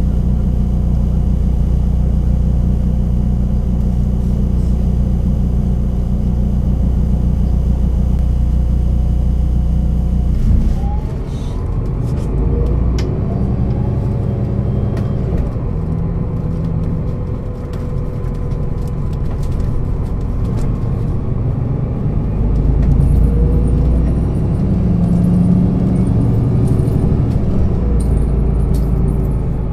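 Diesel engine of a Solaris Urbino 12 city bus running with a steady low rumble, then about ten seconds in the sound changes abruptly and the engine tone rises in several glides as the bus gathers speed.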